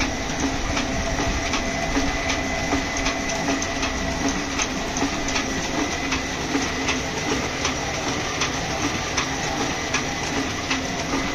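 Sheet-fed offset printing press running and feeding paper sheets: a steady mechanical clatter with a regular click about twice a second over a constant high whine.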